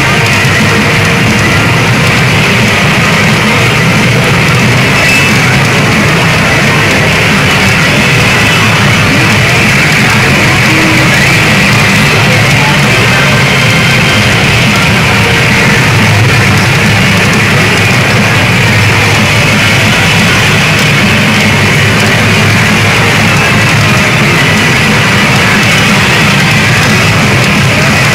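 Pachinko machine playing loud, continuous rock-style music with guitar through its own speakers during an on-screen feature sequence.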